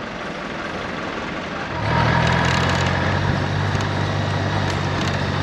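Vehicle engines running in a waiting queue; about two seconds in, a louder, steady engine drone from a nearby vehicle comes in and holds.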